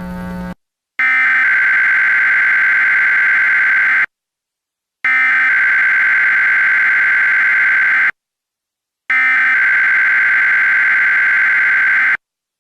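Emergency Alert System SAME header: three identical digital data bursts of about three seconds each, a raspy high-pitched tone, with a second of silence between them, announcing an incoming alert. A brief lower-pitched sound comes at the very start.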